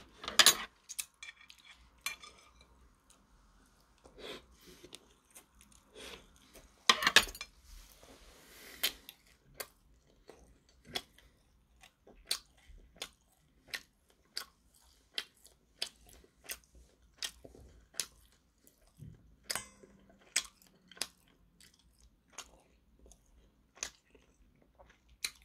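A person chewing crunchy food close to the microphone. Loud bites and crunches come near the start and about seven seconds in, then steady chewing clicks nearly two a second.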